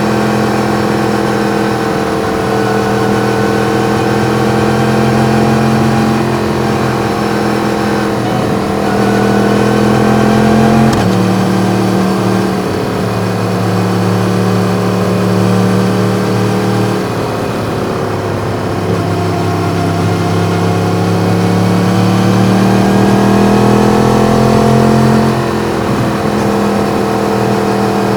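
Yamaha MT-10's crossplane inline-four engine with an Akrapovič exhaust, running under way. Its pitch slowly rises and falls, with sudden changes about 11, 17 and 25 seconds in.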